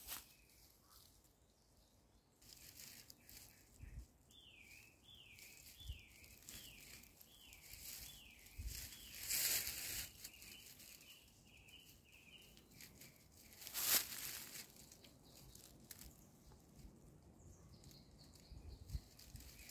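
Faint woodland sounds: a small songbird sings a quick run of about eight downward-sliding notes a few seconds in, while a long dry branch is handled with rustling and knocks, and one sharp crack of wood about two-thirds of the way through.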